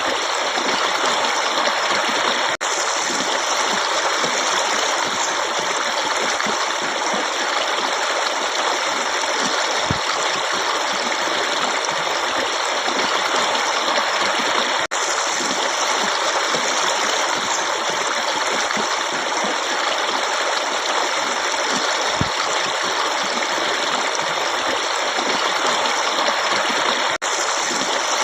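Running water flowing steadily in a forest stream, a dense, even rushing. It drops out for an instant three times, about twelve seconds apart.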